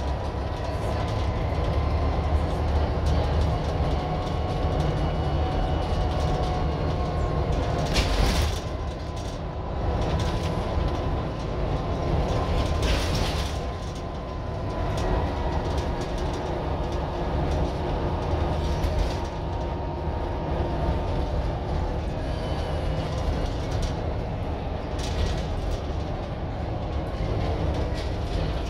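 Scania N94UD OmniDekka double-decker bus under way, heard from the upper deck: a steady low diesel drone with road noise, a faint whine that drifts slowly in pitch, and a few short rattles from the body and fittings.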